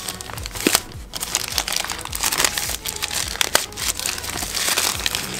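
Packaging crinkling and rustling as a product box is opened and its contents unwrapped by hand, with frequent sharp clicks and snaps.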